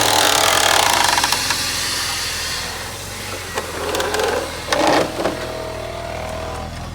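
A car engine idling steadily under a loud scraping, rustling rush of handling noise that fades over the first two or three seconds, then a few short cracks and knocks, typical of a plastic fender liner being pulled out of a wheel arch.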